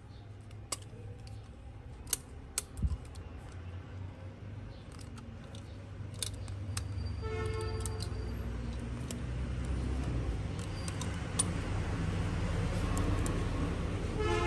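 Thin rubber bands being stretched and snapped around a smartphone's glass and metal frame, with several sharp clicks in the first few seconds and lighter ticks later. A low steady hum grows louder through the second half.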